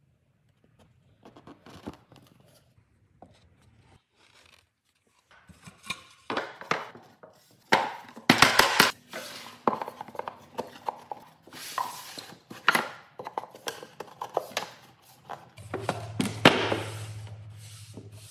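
Plywood parts being handled and fitted together on a wooden workbench: scattered knocks, clacks and wood sliding and rubbing on wood. A low steady hum starts near the end.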